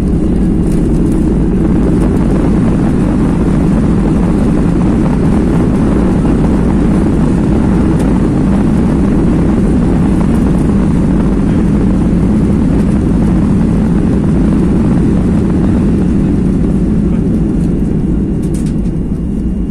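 Loud, steady jet engine noise and runway rumble heard from inside the cabin of a Ryanair Boeing 737 decelerating on the runway after touchdown, ground spoilers up and engines in reverse thrust. It eases slightly near the end.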